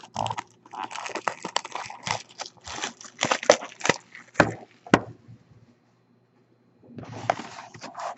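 Clear plastic shrink wrap being torn and crinkled off a trading-card box by hand: a run of sharp crackles and rustles, a pause of about a second and a half after the middle, then more rustling near the end.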